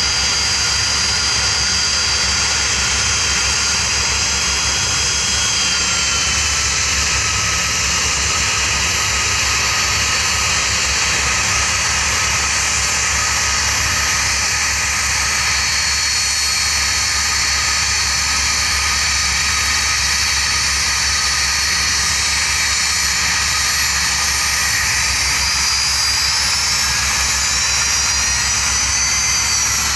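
The four Lycoming ALF502 turbofan engines of a BAe 146-200 running at taxi power: a steady jet whine with several high tones over a broad rush. The tones dip slightly a few seconds in, and near the end a whine rises and then falls.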